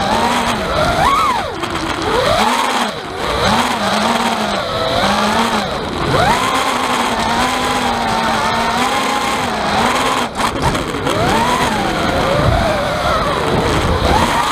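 FPV quadcopter's EMAX 2205 2300kv brushless motors and 5-inch props whining, the pitch rising and falling over and over with the throttle, with a rattle underneath that the pilot suspects comes from a loose microphone inside the camera. The sound drops out briefly about ten seconds in.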